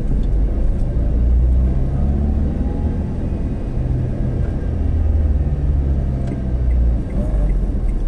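A road vehicle driving along, a steady deep rumble of engine and road noise that swells and eases slightly.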